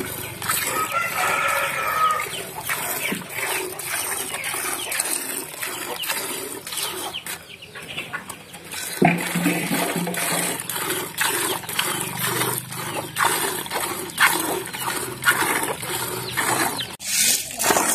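Cow being milked by hand into an aluminium pail: a rhythmic run of squirts of milk hitting the milk in the bucket, about two to three a second.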